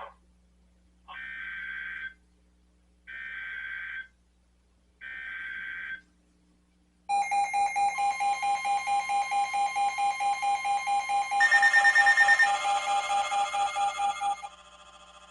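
Emergency Alert System SAME header on NOAA Weather Radio: three one-second bursts of warbling digital data tones two seconds apart. About seven seconds in, a loud pulsing alert tone starts. A second, higher alert tone joins at about eleven seconds, and the first cuts off near the end, leaving a fainter pulsing tone.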